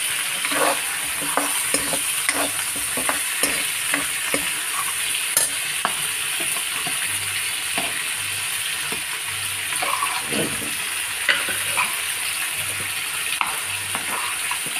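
Boal fish head pieces frying in oil in a pan, sizzling steadily, with a metal spatula scraping and tapping against the pan as the pieces are turned.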